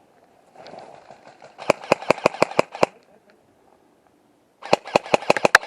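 Airsoft gun firing two rapid strings of shots, about eight a second: nine or so shots about two seconds in, then another eight or so near the end.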